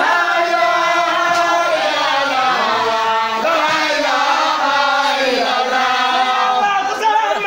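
Several voices chanting together, with long held, wavering notes.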